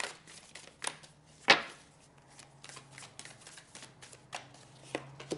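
A deck of large tarot-style cards being shuffled by hand, overhand: a run of soft card slaps and flicks, with a sharper snap about one and a half seconds in.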